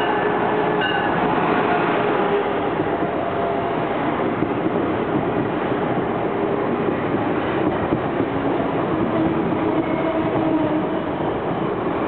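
Amtrak passenger train, an HHP8 electric locomotive with Amfleet coaches, rolling into a station as it slows to a stop: a steady rumble and clatter of wheels on rail, with a few faint tones drifting through it.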